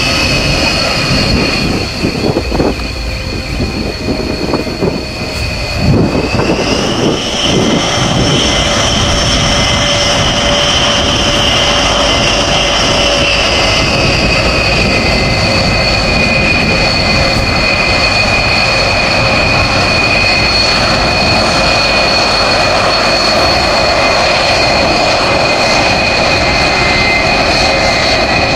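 B-1B Lancer bomber's four turbofan jet engines running, a loud rush under a high turbine whine. The whine rises in pitch about six seconds in, then eases back down and holds steady.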